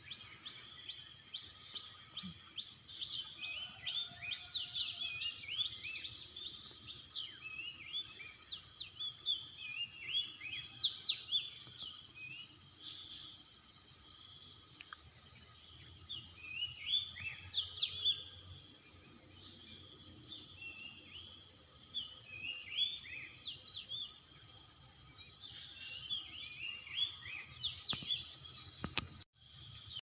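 Many small birds chirping in short, scattered calls over a steady, high-pitched insect drone. The sound cuts off abruptly about a second before the end.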